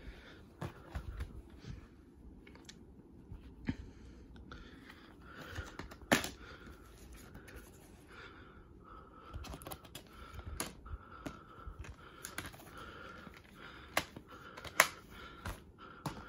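Plastic DVD and Blu-ray cases being handled and shuffled on a bedspread: scattered clicks and taps, with sharper knocks about six seconds in and near the end. A faint steady high hum runs underneath.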